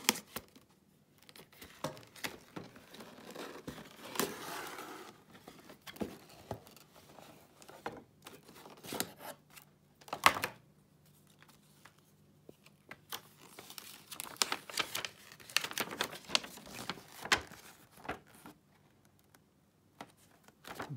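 Cardboard box opened and paper leaflets handled by hand: irregular rustling, crinkling and sharp clicks of paper and card, with the busiest stretch of paper handling in the second half and a short quiet spell near the end.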